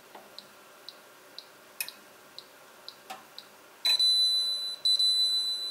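Balmuda toaster oven's timer ticking about twice a second, with a couple of louder clicks, then two long electronic beeps near the end signalling that the toasting is done.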